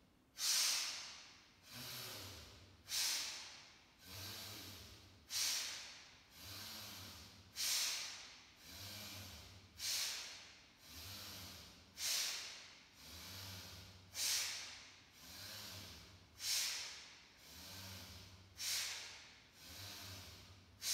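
Forceful pranayama breathing through the nose: a sharp, loud breath alternating with a softer one, about one pair every two seconds, at a steady, even pace.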